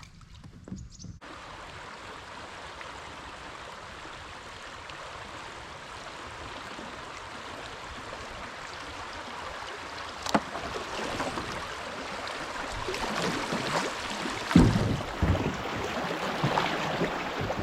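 Steady rush of flowing creek water that begins abruptly about a second in and slowly grows louder, with wind buffeting the microphone in low thumps over the last few seconds.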